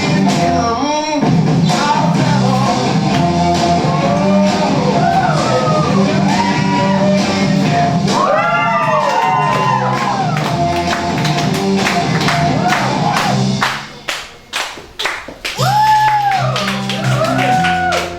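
Band music with a singing voice carrying a melody that slides up and down. About fourteen seconds in the music breaks off briefly for a few sharp hits, then picks up again.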